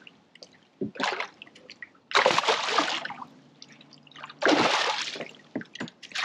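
Water splashing and sloshing as a hooked fish thrashes at the surface close by, in bursts: a short one about a second in, then two long loud ones about two seconds and four and a half seconds in, with trickling between.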